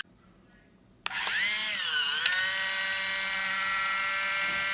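Small battery-powered motor of a Kitchen Mama electric can opener starting with a click about a second in. Its whine sags in pitch, recovers with a second click, then runs steadily.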